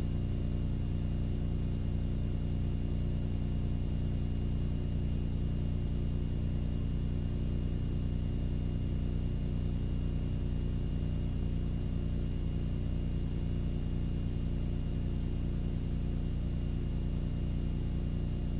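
Steady electrical hum and hiss on a blank stretch of videotape: a low buzz with many overtones, a faint high-pitched whine, and hiss, all unchanging.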